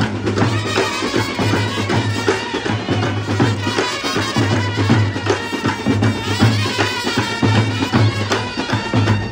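Marching brass band playing: trumpets carry a melody over snare and bass drums keeping a steady beat.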